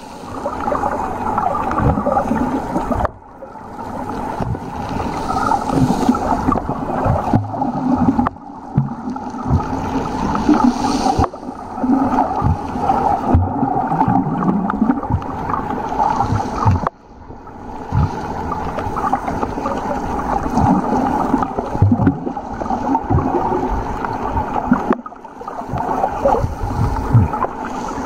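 Underwater sound picked up through a camera held below the surface: a muffled, steady gurgling and sloshing of water, with short low knocks throughout and brief drops in level at about 3, 8 and 17 seconds.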